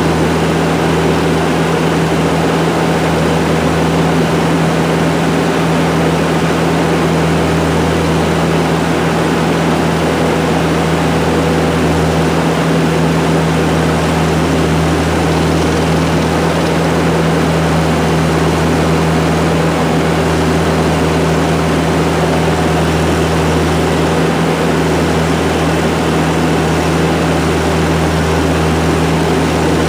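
ASV compact track loader's diesel engine running steadily at constant speed, a loud even drone with no change in pitch.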